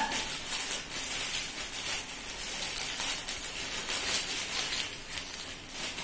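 Clear plastic packaging crinkling as it is handled and pulled open, an irregular run of small crackles.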